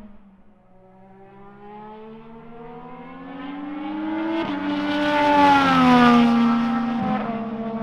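Honda's HPD-built 2024 IndyCar engine, a 2.4-litre V6 running without its hybrid system, at speed as the car approaches and passes. The engine note rises in pitch and loudness, breaks briefly about four and a half seconds in, peaks around five to six seconds in, then falls in pitch as the car goes by, with a sudden step down near the end.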